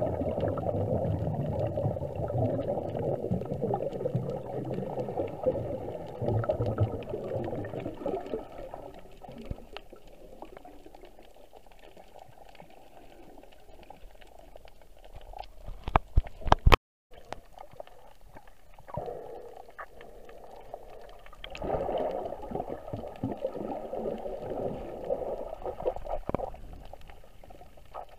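Muffled water gurgling and rushing against an underwater camera, loud for the first nine seconds, then quieter. A few sharp clicks and a brief dropout come about two-thirds of the way in, followed by two more spells of gurgling.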